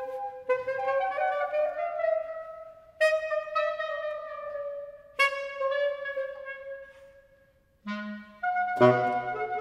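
Clarinet and saxophone duo playing contemporary concert music: long held notes, each starting with a sharp attack and slowly fading. The notes die away almost to silence near eight seconds in, then a short low note and a loud new entry come near the end.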